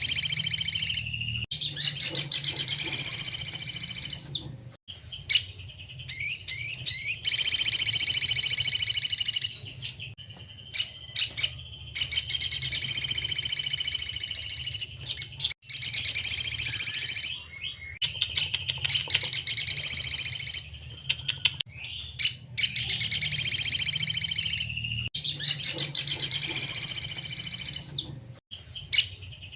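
Crimson sunbird (sogon) singing: repeated high, fast bursts of chirps and trills, each phrase one to four seconds long with short pauses between, about nine phrases in all. A faint low hum runs underneath.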